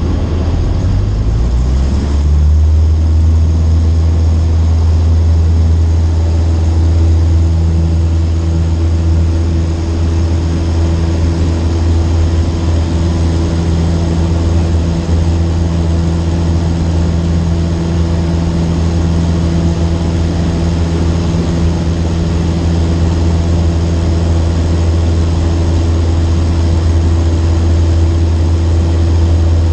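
Cessna 152's four-cylinder piston engine and propeller running; the pitch rises over the first two or three seconds as power comes up, then holds steady.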